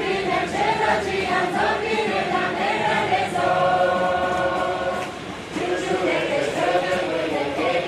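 Large mixed choir of men and women singing a Kurdish song together, with a long held chord in the middle and a short breath break before the singing picks up again.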